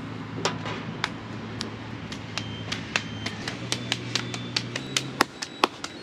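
Steel utensils clinking and knocking at a food stall: a rapid, irregular run of sharp clicks, some with a short metallic ring, coming faster toward the end over a steady low hum.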